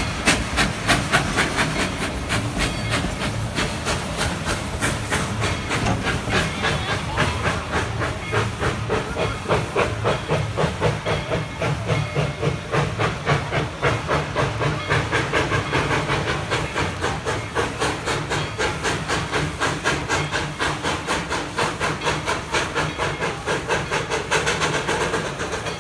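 Steam locomotive pulling a passenger train, its exhaust chuffing in a steady, even beat with steam hissing under it.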